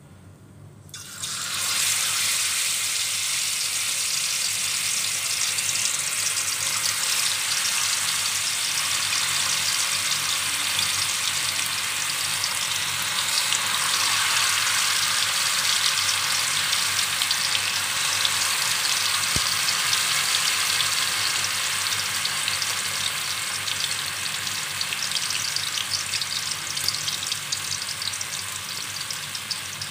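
Blocks of tofu frying in hot oil in a stainless-steel wok: a loud, steady sizzle that starts suddenly about a second in as the tofu goes into the oil, easing slightly near the end.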